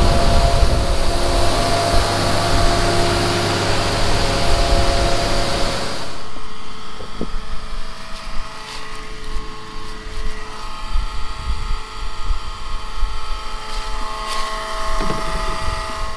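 Tractor-powered grain auger running steadily as shelled corn pours from a truck into its hopper. About six seconds in the sound cuts to a quieter, steady tractor engine running.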